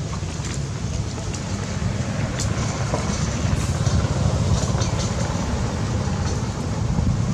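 Steady low rumble of wind buffeting the microphone outdoors, with a few faint short ticks and chirps over it.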